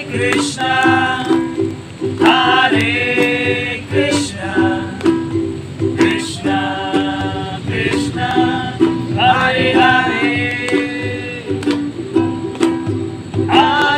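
Kirtan music: a voice chanting a devotional mantra in phrases that recur every few seconds over steady strummed string accompaniment.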